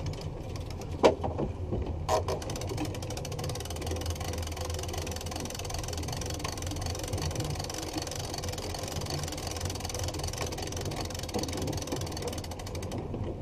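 Boat engine running steadily at low trolling speed, a constant low rumble with a steady hiss over it. Two short sharp knocks about one and two seconds in.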